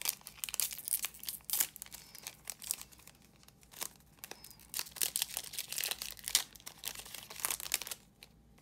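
Crinkly wrapper of a photocard pack being torn open and crumpled by hand: a dense run of sharp crackles that stops near the end.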